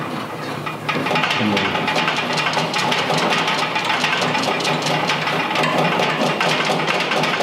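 Small power screwdriver running steadily as it drives in a screw that fixes a handle to a stainless steel gas grill, starting about a second in.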